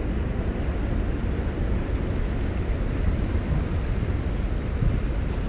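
Steady low roar of water rushing through a large dam spillway, even and unbroken, with most of its weight in the low rumble.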